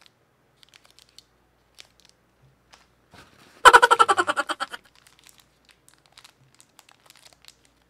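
A small plastic packet is handled and crinkles lightly, giving faint scattered ticks. Near the middle comes one loud, rapid rasping burst lasting about a second.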